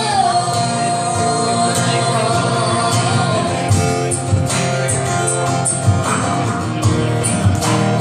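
Live band music: a woman singing into a microphone holds one long note over acoustic guitar, then the voice drops out about three seconds in and the guitar strumming carries on.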